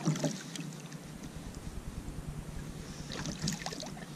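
A hand splashing in the water beside a kayak, rinsing off, with a short burst at the start; then a brief patch of crackle and drips as wet hands are rubbed together near the end.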